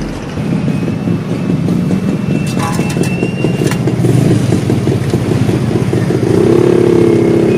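Small motorcycle engine running with a fast, even pulse, revving up to a higher steady pitch about six and a half seconds in.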